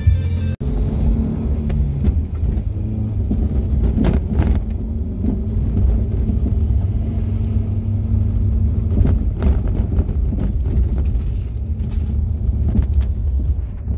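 Steady low drone of engine and road noise inside a moving car's cabin, with a few light knocks along the way.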